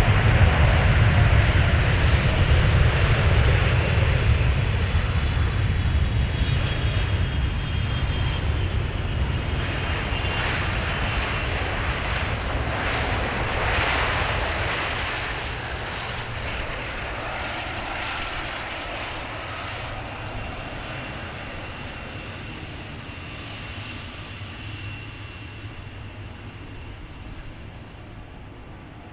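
Jet airliner engines passing close by: a loud low rumble with a thin high whine, loudest in the first few seconds and fading away steadily.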